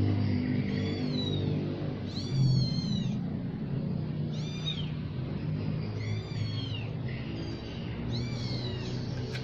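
Kittens mewing: about five short, high, thin cries, one every second or two. Under them runs a steady low motor hum.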